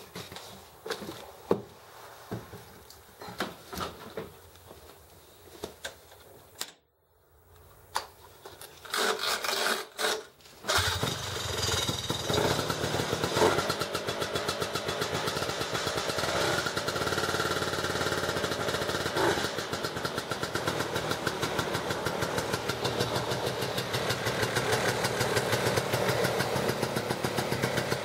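A 1971 Ski-Doo TNT 292 snowmobile's 292 cc two-stroke engine is started. Knocks and a few short bursts of cranking come first; the engine catches about eleven seconds in and runs at a fast, even idle with a few brief revs. The owner says it is set to run a little rich.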